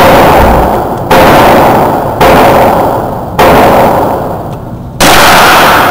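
Western Field rifle fired four times, about one to one and a half seconds apart. Each shot is very loud and trails off in a long echo off the walls of an indoor range.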